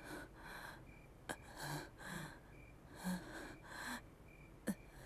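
A woman breathing heavily and unevenly, shaken after a nightmare, with faint catches of voice in some breaths. There are two sharp clicks, one about a second in and one near the end.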